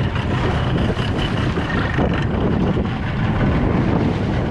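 Outboard motor running as a small open boat moves through choppy sea, with wind buffeting the microphone.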